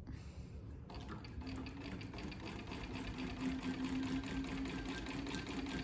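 1948 Singer 15-91 sewing machine starting up about a second in and running steadily, its electric motor humming under a fast, even ticking of the needle and feed as it sews; it runs well.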